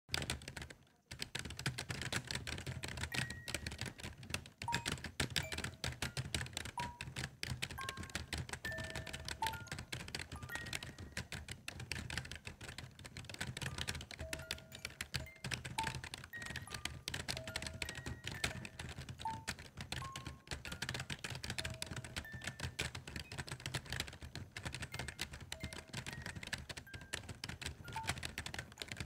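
Quiet background track: a slow, sparse melody of single soft notes over a low steady hum, laid over a dense, constant patter of clicks like keyboard typing.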